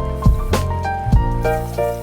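Background music with a steady beat and pitched keyboard-like notes.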